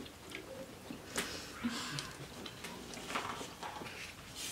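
Scattered soft clicks and cracks of snow crab leg shells being broken and picked apart by hand.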